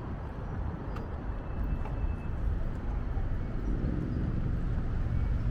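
Street traffic ambience: a steady low rumble of passing vehicles, with a few faint clicks.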